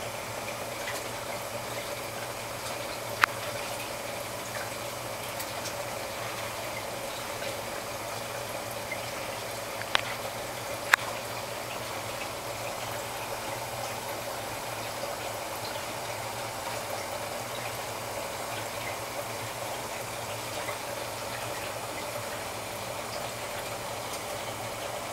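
Steady bubbling of a rigid airline in a small glass larval-rearing kreisel, with a low hum underneath and a few sharp clicks.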